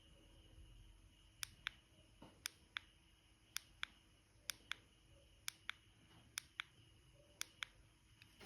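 Push-button switch of a small rechargeable torch clicking in quick pairs, press and release, about once a second, seven times.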